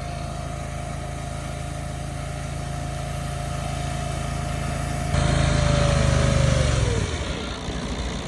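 Small petrol engine of a concrete laser screed running steadily with a high whine, then louder about five seconds in. Near the end its note sags and dies away as the engine cuts out from running out of fuel.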